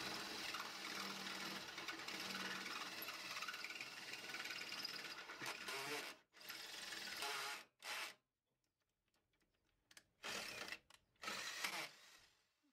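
Cordless drill running against the steel floor plate, drilling out holes for riv nuts. A steady whir for about six seconds, then several short bursts that cut off abruptly.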